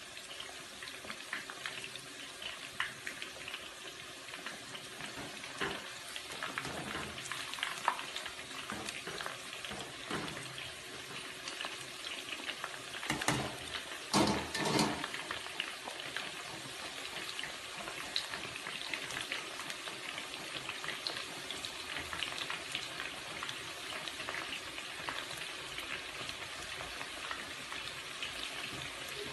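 Batter-coated chicken pieces deep-frying in hot oil: a steady sizzle full of small crackling pops. A short cluster of louder crackles and clicks comes about halfway through.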